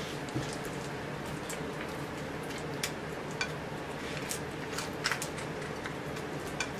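Small dog eating leftovers off a glass plate: wet chewing and licking with irregular sharp clicks, the loudest a quick pair about five seconds in, over a steady low hum.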